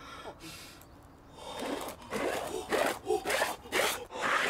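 A man sniffing loudly at food held up to his face, in a run of about six quick, noisy snuffling breaths, roughly two a second. They start about a second and a half in and grow louder.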